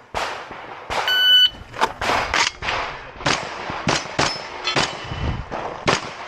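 Shot timer beeps about a second in, then a string of about eight gunshots fired at an uneven pace, with steel targets ringing after some of the hits.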